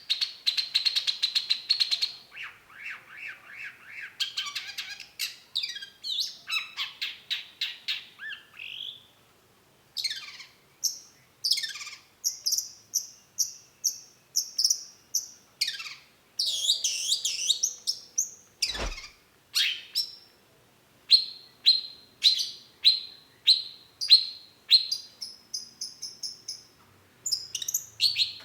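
Long-tailed shrike singing a fast, varied song: runs of sharp, rapidly repeated notes and chirps that change phrase every second or two, with a couple of brief pauses and one sharp downward sweep about two-thirds in.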